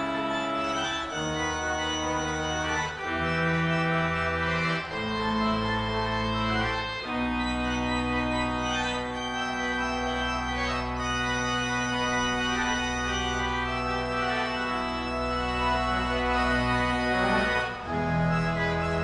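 Two-manual church organ playing sustained chords over a deep bass line: the chords change every second or two at first, then a long chord is held from about seven seconds in until a change near the end.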